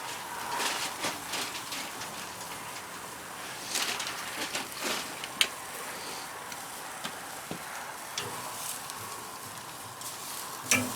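Skirt steaks sizzling on the grill grate of a drum cooker over a hot fire, a steady hiss with a few sharp clicks now and then.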